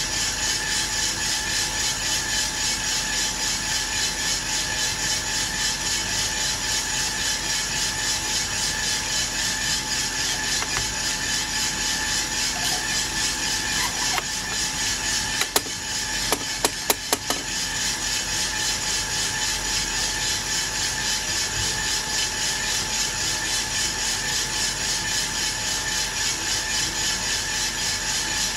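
Aillio Bullet R1 V2 coffee roaster running steadily mid-roast, beans tumbling in the turning drum, with a fine, even pulse. About fifteen seconds in comes a short run of sharp clicks as the sample trier is pulled out and pushed back.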